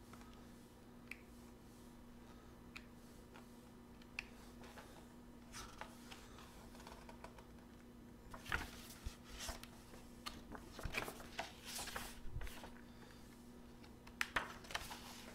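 Pages of a paperbound book being turned and handled: faint scattered rustles and taps at first, then busier rustling and paper taps from about halfway in, over a faint steady hum.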